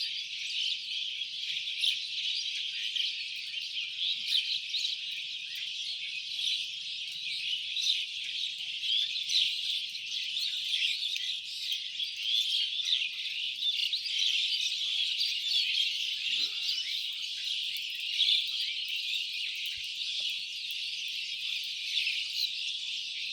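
A flock of small birds chirping and chattering continuously, many calls overlapping into a dense din.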